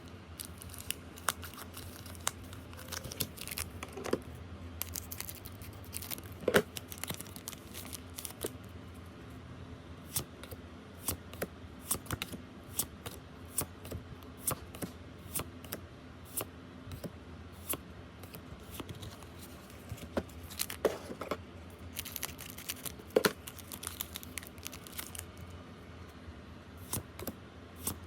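Pokémon trading card booster packs being handled and opened: foil wrappers tearing and crinkling, with cards shuffled in many short, sharp clicks and rustles at irregular spacing.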